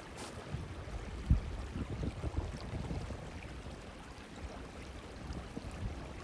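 Strong gusty wind through forest trees, buffeting the microphone in a low, uneven rumble, with a single thump about a second in.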